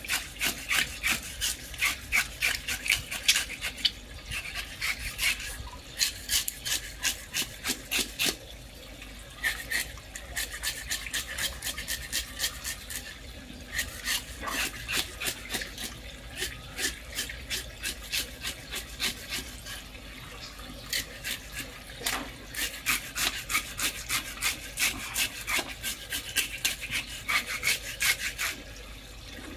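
Knife blade scraping the scales off a large carp on wet concrete: quick rasping strokes, several a second, in runs with short pauses between them.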